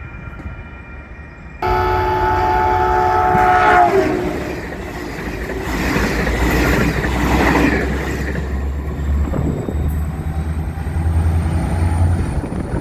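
Caltrain train horn sounding one chord blast of a few seconds, starting about one and a half seconds in, followed by the train passing close by: a loud rumble with a steady low hum and wheels clattering over the rails.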